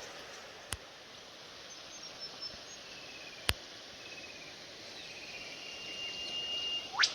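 Wild birds calling: short chirping trills, then a long steady whistle, and near the end a sharp upward-sweeping whistle that is the loudest sound. Two sharp clicks come earlier, about a second in and midway.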